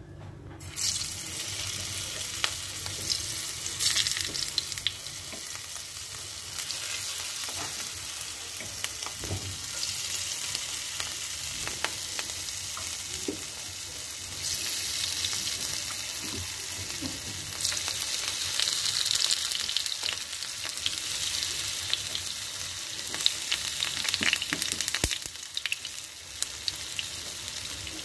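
Hot oil sizzling in a frying pan as rounds of glutinous sticky rice cake go in to fry, with sharp crackles and pops. The sizzle starts about a second in and swells a few times as more pieces are added.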